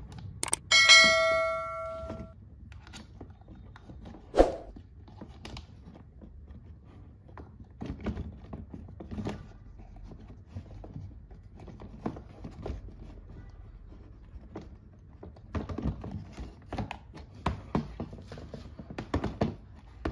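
Plastic clicks and knocks from a crab walking toy, wired to a 7 V bench supply, as it is handled and crawls on the tabletop. The clicks come thicker near the end. A bell-like ding rings about a second in.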